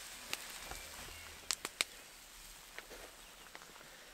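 Campfire with a pan of pancakes frying on it: a faint hiss with scattered sharp crackles and pops, three of them close together about a second and a half in.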